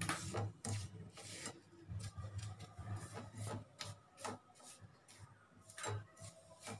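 Fingers rubbing dry spiced semolina (rava) around a steel plate: a series of short, uneven scratchy strokes as the grains scrape over the metal, about two a second.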